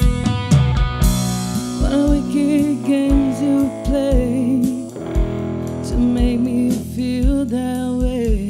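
Live band playing: drum kit with a steady kick beat, electric bass and electric guitar, with a woman singing a wavering melody over it.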